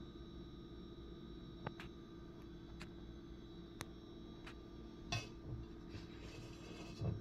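Quiet room hum with scattered light clicks, and a couple of soft bumps, one about five seconds in and one near the end.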